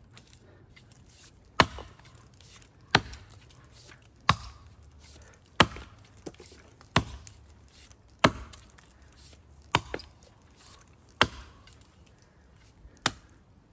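Axe blows biting into the trunk of a standing tree, cutting a side notch: nine sharp, evenly paced chops, about one every second and a half.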